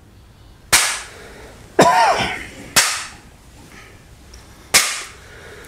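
Four sharp percussive strikes, three about a second apart and the last after a longer gap, each ringing out briefly in the reverberant hall; a short voice sound comes with the second strike.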